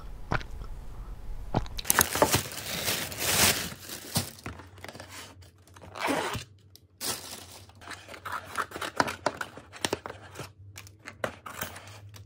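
Plastic takeout food container being opened by hand: the thin plastic lid and wrapping crinkle, tear and scrape.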